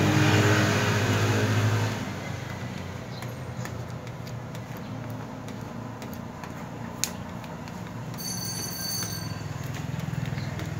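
A motor vehicle's engine hum, loud for the first two seconds and then dropping to a steady low background rumble. There is a single sharp click about seven seconds in, and a brief high-pitched tone about a second later.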